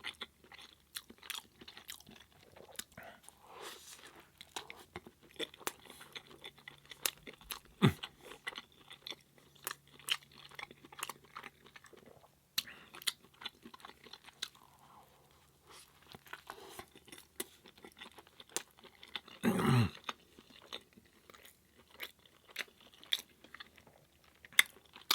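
Close-miked chewing of a Beyond Meat burger patty in spaghetti sauce, with many short wet mouth clicks and smacks. A brief low vocal sound comes near the end.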